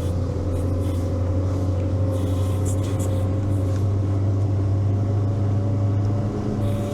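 Engine of a six-wheel all-terrain vehicle running steadily while under way, its pitch creeping up slightly.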